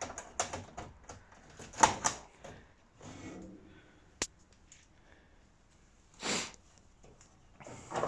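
Scattered light clicks and knocks from handling, loudest about two seconds in, with one sharp click a little after four seconds and a short rustle about six seconds in.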